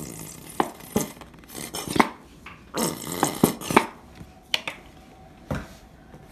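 A plastic ketchup squeeze bottle squirting into a glass bowl: several short, sputtering squirts with sharp clicks in between, then a few knocks as the bottle is handled and set down on the countertop.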